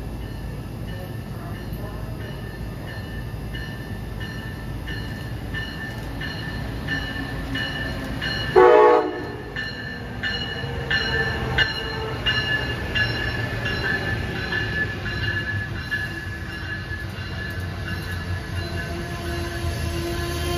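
Amtrak ACS-64 electric locomotive approaching and passing, its bell ringing about twice a second. One short horn blast about nine seconds in is the loudest sound. The rumble of the passenger coaches rolling by follows.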